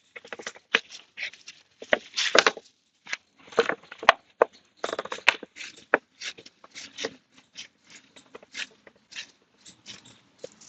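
Motorcycle drive chain being cleaned with diesel and chain cleaner: short, irregular scrubbing strokes, a few each second, with gaps between them.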